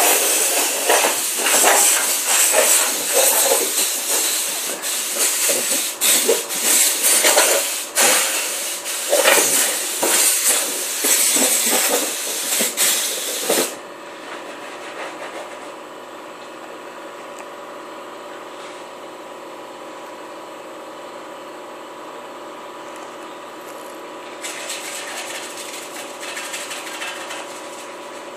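Compressed air hissing in loud, uneven blasts from an air gun on a hose, cutting off suddenly about fourteen seconds in. A steady hum with a few steady tones is left behind, and fainter hissing starts again near the end.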